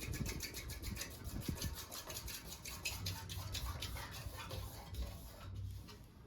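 A 1980 Fasco Parlour ceiling fan with heavy plastic blades, running with an even, rapid ticking of several beats a second over a low hum. The ticking fades away about five seconds in.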